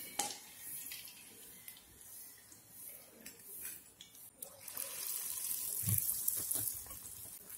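Hot coconut oil in a wok sizzling and crackling around frying dough, with a few light clicks of a wire strainer against the pan. About halfway through, the sizzle grows louder and steadier as a fresh piece of raw dough is slid into the oil.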